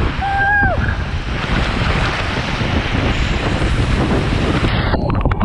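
Rushing water and wind buffeting the microphone of a camera riding down a mat water slide, with a short, high cry that falls off at its end about half a second in. Near the end the hiss of the upper frequencies cuts off abruptly.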